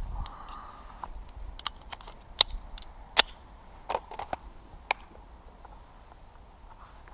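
A shot timer's start beep, then two pistol shots about 0.8 s apart, about two and three seconds in, followed by a few fainter clicks.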